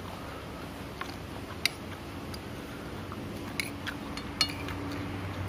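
Metal fork and spoon clinking and scraping against a ceramic plate while eating, a handful of sharp clinks, the loudest about one and a half seconds in and again a little past four seconds in.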